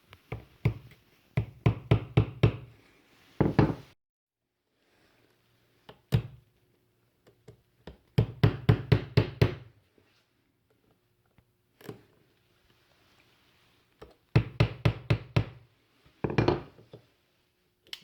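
Runs of quick, light taps, about five a second, with short pauses between: the hinge pin being tapped back into a GM switchblade key fob to hold the key blade.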